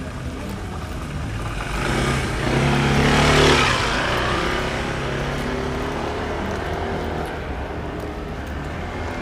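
Motor scooter passing close by: its engine sound swells to a peak about three and a half seconds in, then fades away.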